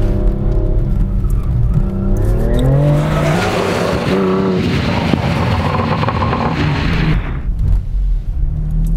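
BMW car engine revving hard through a gymkhana run, its pitch climbing and dropping as it shifts and accelerates. Tyres skid and spin through the middle of the run.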